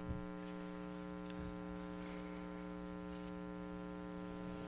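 Steady electrical mains hum in the microphone audio, a low buzz with many even overtones that does not change.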